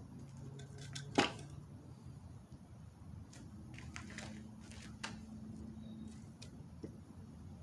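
Sparse knocks and clicks from a wooden board being handled and set on a gravel base, the loudest a single sharp knock about a second in, over a faint low hum.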